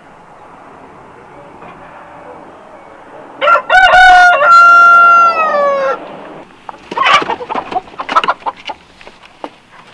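A rooster crowing once, loud: a few short wavering notes, then a long held note that falls away at its end. A scatter of sharp clicks and knocks follows about a second later.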